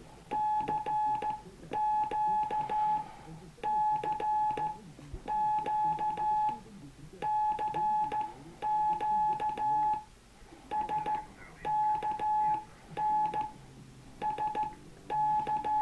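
Morse code (CW) from a ham radio: a steady beep of about 850 Hz keyed on and off in slow long and short marks, with faint band noise between them.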